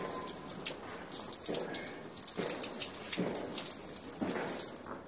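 Water poured in a thin stream from a small metal pot, splashing and pattering steadily on the ground below.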